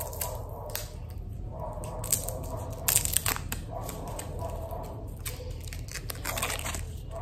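Shiny gold candy wrapper crinkling and tearing as it is peeled off by hand, in a run of short irregular crackles with a louder burst about three seconds in.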